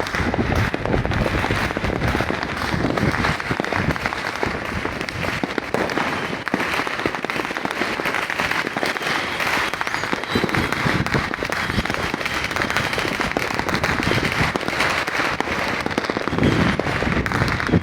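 Many fireworks and firecrackers going off at once: a dense, unbroken run of bangs and crackling, with a heavier boom near the end.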